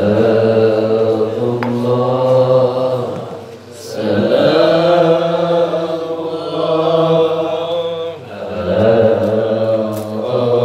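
Sholawat chanted on the Prophet in long, drawn-out sung phrases, each held about four seconds and separated by short breaths.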